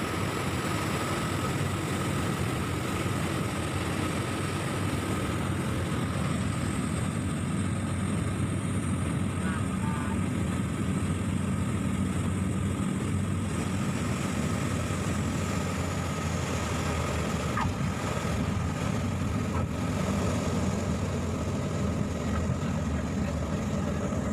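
Cabin noise of a small single-engine turboprop airplane during landing and roll-out: a steady, loud drone of engine and propeller with a high whine on top. The highest whine drops a little in pitch about halfway through, and a few faint knocks and rattles come near the end.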